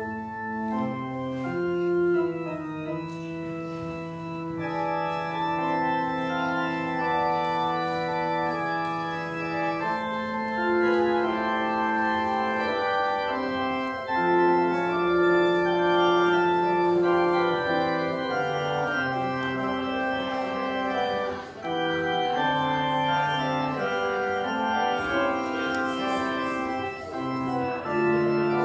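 Church organ playing the postlude: slow sustained chords and long held notes, entering suddenly just after the closing "Amen".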